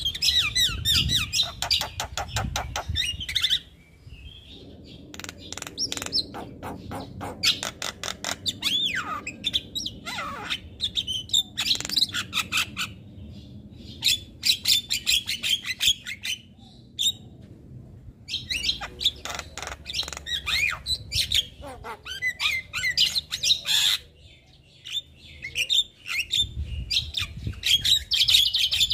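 Javan myna singing: long bouts of fast, harsh clicking chatter mixed with squawks and whistled notes, broken by a few short pauses.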